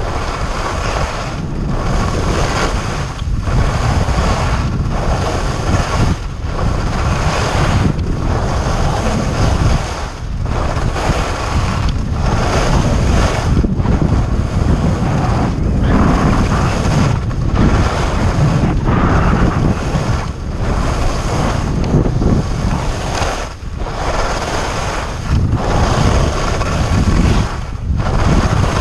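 Wind rushing over the camera microphone and skis scraping over groomed snow during a fast downhill run. The roar swells and drops about once a second, with each turn.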